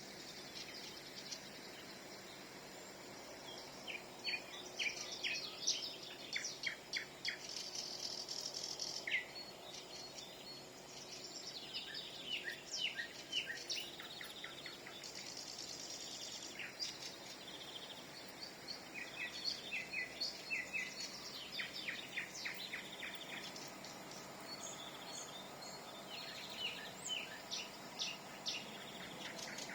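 Nightingale song: phrases of rapid repeated notes and rattling trills, each a few seconds long, separated by short pauses, over a faint steady background hiss.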